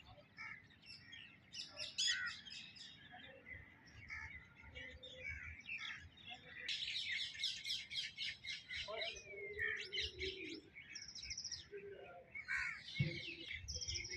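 Several birds chirping and calling, overlapping, with a dense run of rapid notes about halfway through and a high, fast trill a little later.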